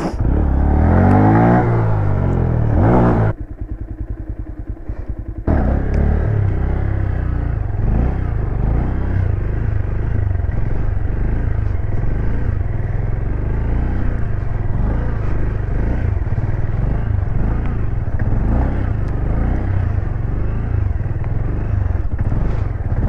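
Honda Grom's small single-cylinder engine revving up and down hard for about three seconds, dropping to a quieter low putter for about two seconds, then running on loudly at varying revs as the bike is ridden.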